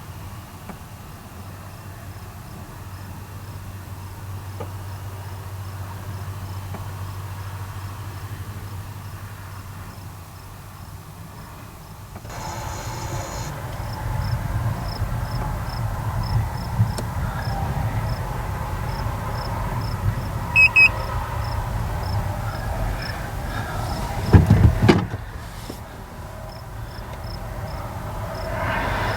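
Vehicle driving along a road, a steady low engine and road rumble that grows louder about twelve seconds in, with crickets chirping evenly in the background. There is a brief low thump about three-quarters of the way through.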